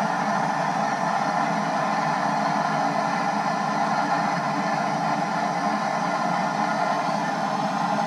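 Handheld propane torch burning with a steady hiss, its flame held into the burner pot of a homemade waste-oil heater to light the vegetable oil.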